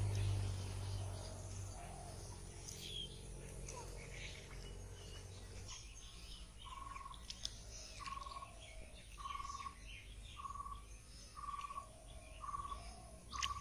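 Birds calling: scattered high chirps, then from about halfway a short mid-pitched note repeated roughly once a second. A low steady hum is loudest in the first half and fades.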